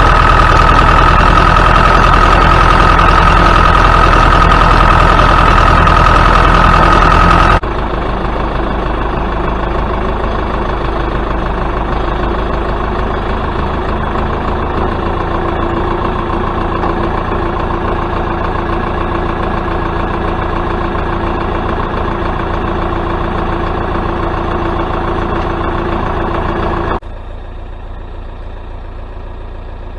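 Tractor engine running steadily. The sound drops abruptly in level and changes character twice, about a third of the way in and again near the end.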